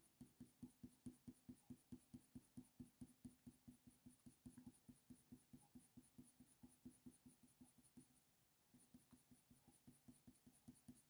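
Faint scratching of a Faber-Castell Polychromos coloured pencil on hot-press watercolour paper, laid down in quick short strokes about four to five a second. The strokes thin out and pause about eight seconds in, then a few more follow.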